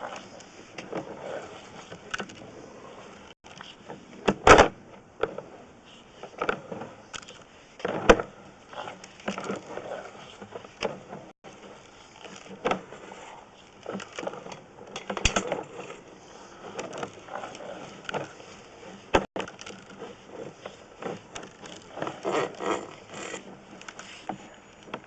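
Irregular knocks, clicks and clatter from sewer inspection camera equipment being worked, with the sharpest knocks about four and a half seconds in and about eight seconds in.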